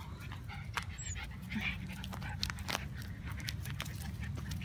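Two schnauzers on leashes panting as they walk, with footsteps crunching and rustling through dry grass and leaves in short irregular clicks.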